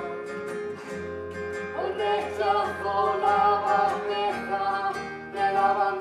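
A live band playing a pop-rock song, with guitar and singing.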